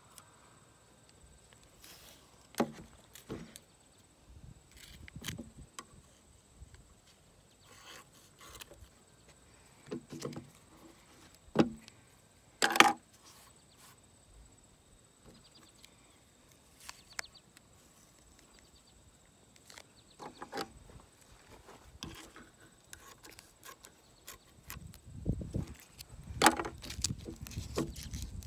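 Handling noise: scattered clicks and knocks, a few seconds apart, as the phone carried at the hip bumps and rubs. The loudest knocks come about twelve seconds in, and a low rumble with more clicks comes near the end.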